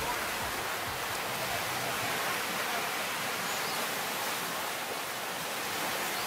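Ocean surf washing on the shore, a steady wash of noise with no single wave standing out.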